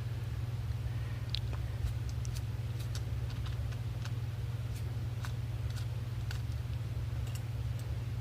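Small, irregular light clicks and ticks of metal knife parts and a Torx driver being handled, over a steady low hum.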